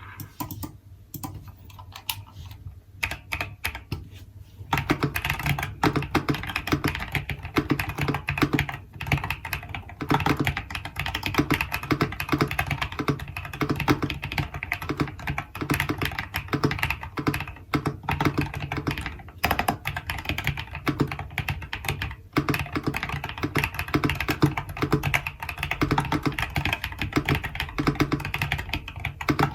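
GMK67 mechanical keyboard with Akko Creamy Yellow v3 Pro linear switches, PE-foam and tempest-modded, being typed on. A few sparse, quieter keystrokes come first, then fast, steady typing from about five seconds in.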